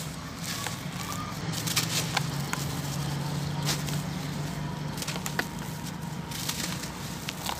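Hands crushing and crumbling dry sand-cement chunks: gritty crunches and crackles at irregular moments as the pieces break apart and rub together. A steady low hum runs underneath.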